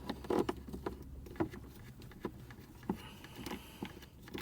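Scattered light clicks and taps of small plastic parts being handled as an aftermarket USB/USB-C charger socket is screwed into place in a truck's dash.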